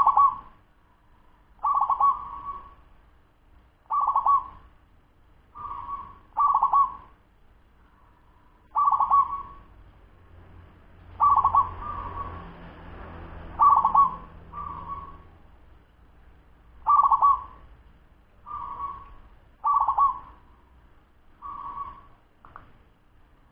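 Zebra dove (perkutut), a ten-month-old bird, cooing in short, quick phrases, one every one to two seconds, about fifteen in all.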